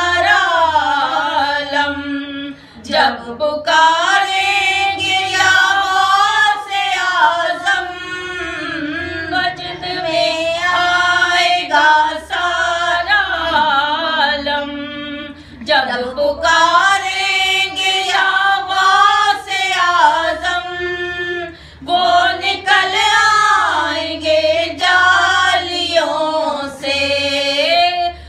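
Two women singing an Urdu devotional manqabat unaccompanied, in long drawn-out melodic lines with short pauses for breath about 3, 16 and 22 seconds in.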